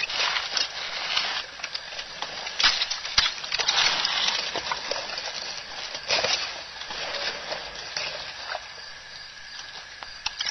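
African elephants browsing on a bush: leaves rustling and twigs crackling and snapping as they are stripped and broken, with a few sharper snaps a few seconds in.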